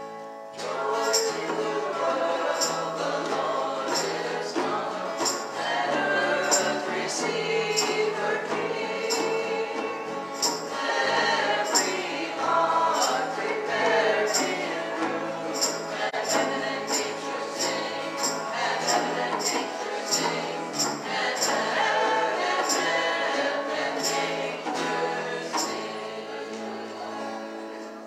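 Church worship band playing and singing: voices over strummed acoustic guitars, with a steady beat of sharp percussion hits.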